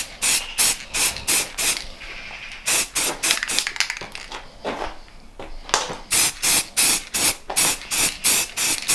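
Aerosol spray paint can hissing in quick short squirts, about two or three a second, with a brief pause about two seconds in and a longer one around four to six seconds.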